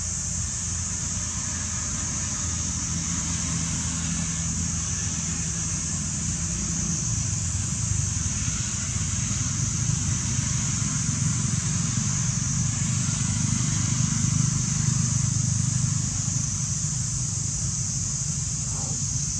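A steady low engine-like rumble, growing louder through the middle and easing off a few seconds before the end, with a constant high hiss over it.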